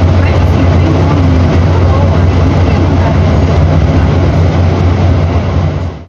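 Mercedes-Benz OM 926 LA inline six-cylinder Euro VI diesel in an O-500U BlueTec 6 city bus, idling steadily with a deep, even hum; it fades out right at the end.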